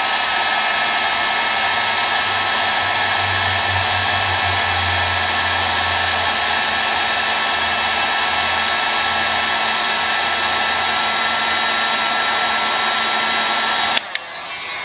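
Electric heat gun running steadily: a rush of blown air with a steady whine, heating chaser's pitch to soften it. It switches off with a click about fourteen seconds in.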